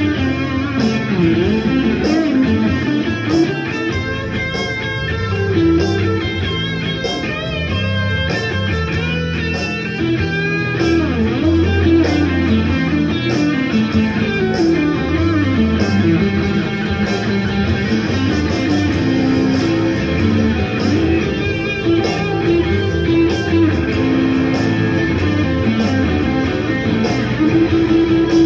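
Guitar playing a blues instrumental, with notes bent up and down.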